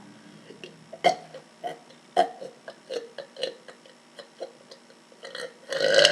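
A girl's throat making a string of short, sharp air sounds, about two a second, as she builds up swallowed air, then near the end a louder, longer belch-like release. By her own account it is not a real burp but just the built-up air coming out.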